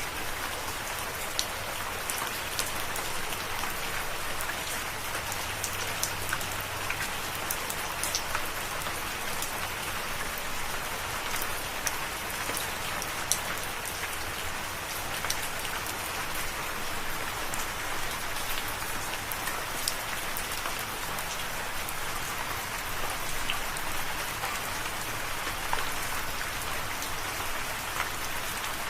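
Steady rain falling, a continuous hiss with many individual drops tapping on a surface.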